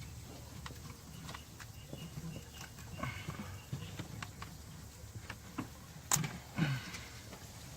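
Scattered light clicks and taps of hand work with meter test leads and connectors, with two sharper clicks about six seconds in.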